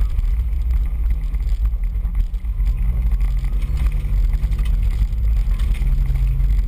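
Four-wheel-drive vehicle's engine running as it drives a rough dirt trail, its note shifting up and down several times with the throttle over a heavy, steady low rumble.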